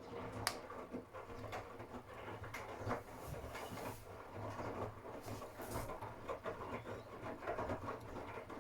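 Miele W1 WCA018 front-loading washing machine turning its drum in a wash phase. There is a low motor hum, and the laundry tumbles and sloshes with irregular knocks and clicks. It starts suddenly and stops suddenly after about eight and a half seconds, as the drum pauses.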